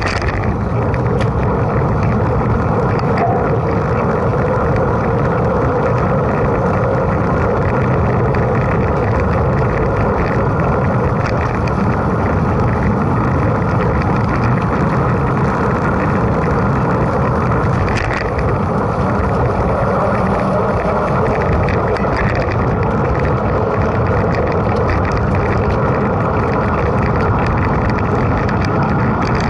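Steady rush of wind and tyre noise from a mountain bike being ridden, with scattered faint clicks and rattles.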